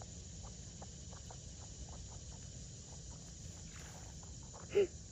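Quiet outdoor pond-side ambience with faint, irregular ticks, and a single short pitched sound, the loudest thing, near the end.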